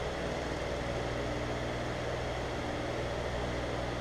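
Metal-turning lathe running at a steady speed, its motor and drive giving an even hum while it spins the Delrin bar stock in the chuck.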